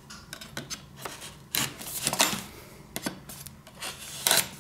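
Hands handling a cardboard box: scattered rustles, scrapes and light taps of fingers and card, a few of them louder, the loudest near the end.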